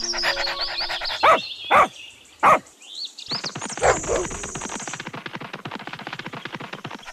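A dog barking four times in the first four seconds, single barks about half a second to a second and a half apart, over a rapid steady rhythmic background.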